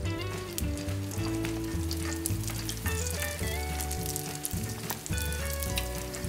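Yeast dough for Vietnamese hollow donuts deep-frying in hot vegetable oil, sizzling with a dense, steady crackle as the oil bubbles around it. Background music plays along with it.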